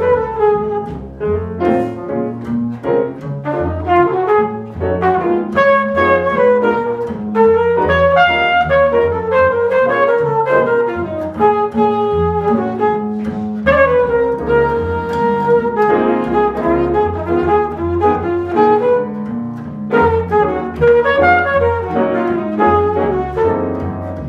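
Jazz flugelhorn playing a melodic line over piano chords and upright double bass, in a small acoustic quartet with no vocals.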